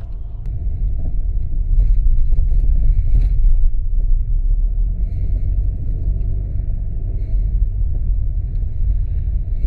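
Mercedes E250 driving, with heavy low rumble of road and running noise and a faint clattering knock, the 'khad khad khad' rattle from the suspension near the right-side wheel, caused by a worn suspension link rod.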